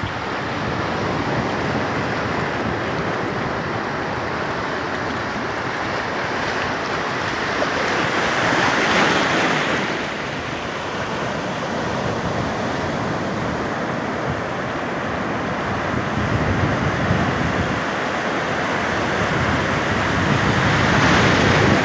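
Sea waves breaking and white surf rushing up the beach in a continuous wash, with a louder surge of breaking surf about eight seconds in and another near the end.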